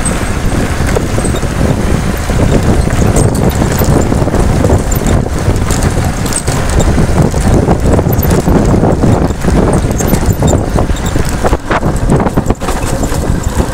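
Heavy wind buffeting the microphone on a moving motorcycle, with the bike's engine and tyres rumbling underneath.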